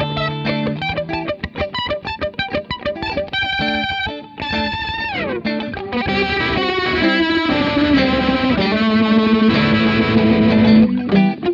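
Two electric guitars playing together through a Fender Pinwheel rotary speaker emulator pedal, the notes carrying a Leslie-style warble. About five seconds in, a held note slides down in pitch. The playing then grows fuller and louder over a long held low note before it stops near the end.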